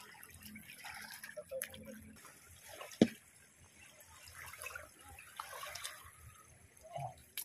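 Water splashing and dripping on a wet surface around a catch of small fish, with one sharp knock about three seconds in.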